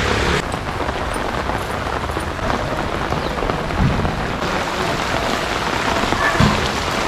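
Heavy rain falling steadily on wet pavement and standing floodwater, with two short low thumps, one about four seconds in and one near six and a half seconds.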